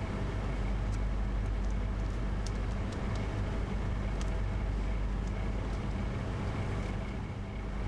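Steady low droning hum of shop ambience, with a few faint ticks.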